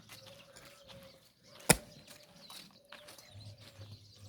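One sharp knock about two seconds in, over faint bird chirps.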